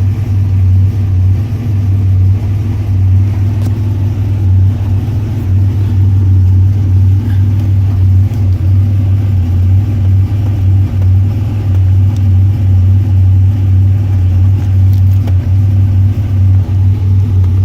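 Steady low hum of a running car with its HVAC blower fan on high, air blowing from the dash vents as the control head is set to vent mode.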